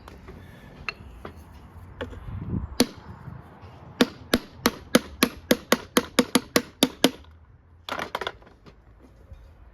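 Hammer striking repeatedly: a run of about a dozen sharp, ringing blows at some four a second, quickening slightly, followed after a short pause by a quick cluster of three or four more.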